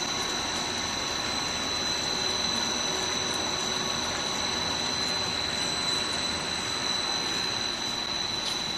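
Pet-food extrusion line running: the extruder and its mesh-belt conveyor make a steady machine noise with a constant high whine on top.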